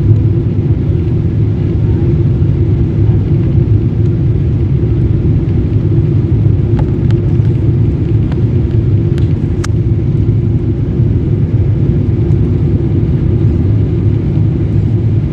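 Airliner cabin noise: a steady, loud low rumble of jet engines and airflow that holds unchanged throughout, with a few faint clicks in the middle.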